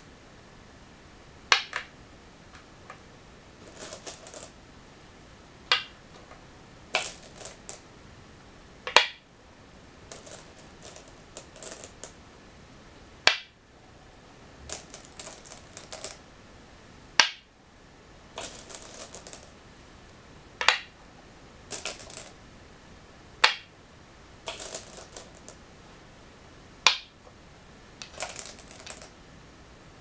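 Go stones set down one at a time on a wooden Go board, each a sharp clack, about eight in all at intervals of roughly three to four seconds. Between them, quieter clattering of stones in the bowl as the next stone is picked out.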